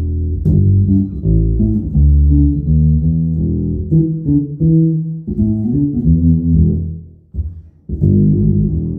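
Fender American Professional II Precision Bass played solo through a Fender Stage 800 bass amp with flat EQ, a run of single plucked notes moving up and down in pitch. A held note rings at the start, and there is a brief pause about three-quarters of the way through before the playing resumes.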